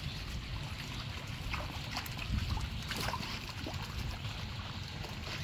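Pond water splashing and gurgling lightly in short bursts as koi move at the surface and a hand strokes one, over a steady low background noise.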